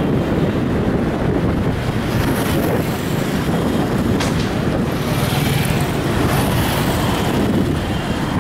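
Steady low rumble of city traffic, with passing hiss now and then.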